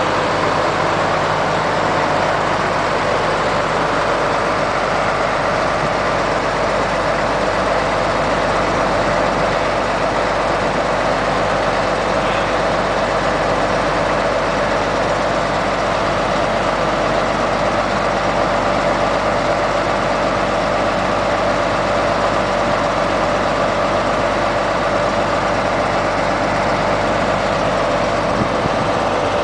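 Pegaso 1436.38 tipper truck's diesel engine running steadily at an even speed.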